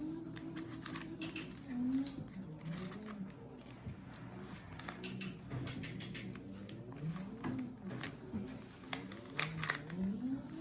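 Plastic twisty puzzle, a banana-shaped Rubik's cube variant, being turned by hand: quick, irregular clicks and clacks of the pieces, the loudest ones near the end. A low, wavering hum runs under the clicks.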